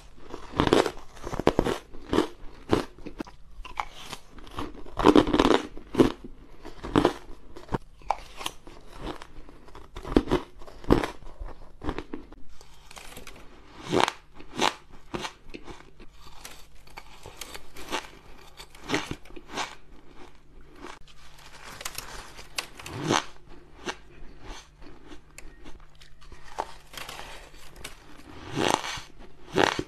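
Shaved ice being bitten and chewed, an irregular run of crisp crunches with softer chewing between them, a few bites much louder than the rest.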